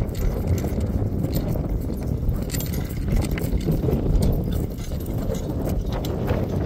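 Draft horses pulling a walking plough: metal harness fittings jingling and clinking with the horses' steps, along with hoof falls, over a steady low rumble.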